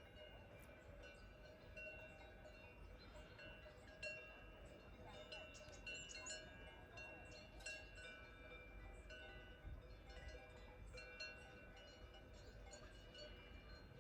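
Faint, irregular ringing and clanking of several cowbells, as on grazing cattle in an Alpine pasture, with overlapping metallic tones that come and go.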